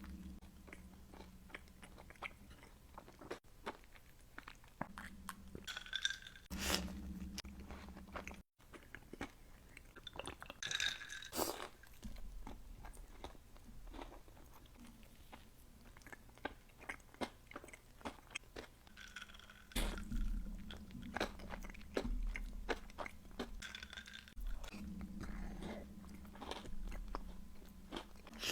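A person biting and chewing a fudgy brownie close to the microphone, its crunchy candy topping crackling in irregular clusters of crunches between softer chewing.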